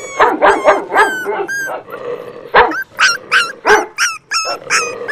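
Young puppy crying in a quick series of short, high-pitched yelps, about three a second, each rising and falling in pitch, with a brief pause near the middle. These are the distress cries of a puppy separated from its mother.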